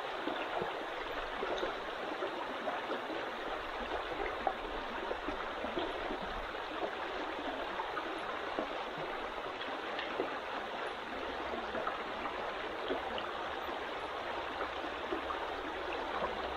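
Mountain trout stream flowing: a steady rush of running water with small splashes and trickles throughout.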